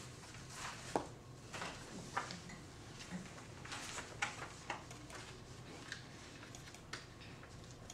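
Sheets of paper rustling and being handled, with scattered small clicks and taps over a quiet room hum; the loudest is a sharp click about a second in.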